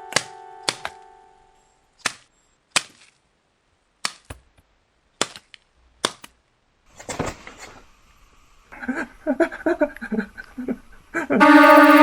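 Horror film soundtrack: a held chord fading out, then sharp single hits a second or so apart, each cut off short. Near the end a loud, sustained eerie synth tone swells in.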